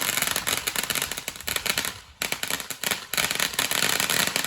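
Consumer ground fountain firework spraying and crackling: a dense rapid stream of pops over a hiss, dipping briefly twice.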